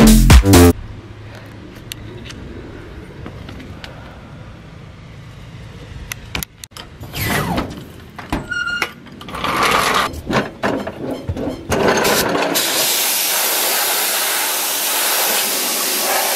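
Pressure washer jet spraying the underside of a truck, against the rear coil spring and leaf spring: from about twelve seconds in, a steady loud hiss. Before it come quieter, uneven spraying sounds, and a burst of dance music that cuts off at the very start.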